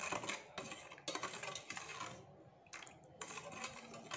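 Steel spoon stirring milk in a stainless steel bowl, clinking and scraping against the bowl's sides and bottom as powdered sugar is mixed in to dissolve. The strokes pause briefly about two seconds in and again about three seconds in.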